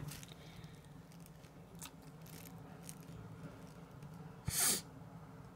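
Quiet room tone with a faint steady low hum and a few faint ticks. About four and a half seconds in there is one brief burst of hiss.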